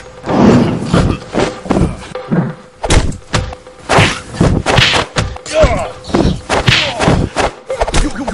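Mock fight: an irregular run of thumps and whacks, about two or three a second, with short shouts in between.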